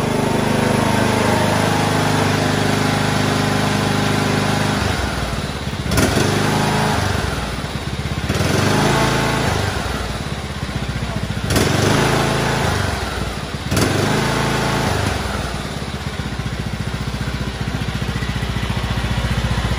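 Single-cylinder Briggs & Stratton 21 hp engine of a John Deere LA125 riding mower running, its pitch dipping and picking up again several times as the mower is driven, with a few sharp clicks. It runs on a newly replaced head gasket.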